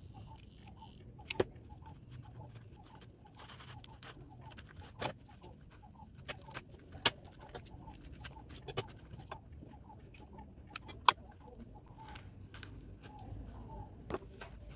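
Scattered sharp clicks and taps from hands working sisal rope onto the rim of a cardboard basket, with scissors cutting the rope about eight seconds in.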